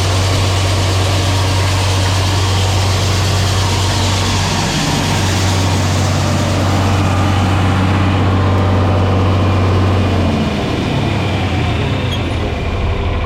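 Tractor engine running steadily with a deep hum; about ten seconds in, the note changes and the sound drops slightly.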